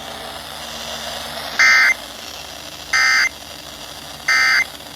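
Emergency Alert System end-of-message signal: three short, identical bursts of SAME digital data tones, each about a third of a second long and spaced about a second and a half apart, over steady radio hiss. The bursts mark the end of the broadcast alert.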